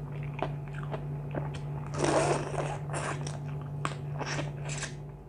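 Close-miked crunching and chewing of crisp food: irregular sharp bites, with a denser run of crunching about two seconds in.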